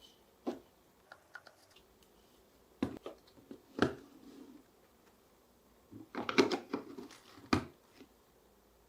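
Marbles clicking and knocking as they run down a marble run track: scattered single ticks, a louder knock with a short roll after it, then a quick clatter of several hits about six seconds in.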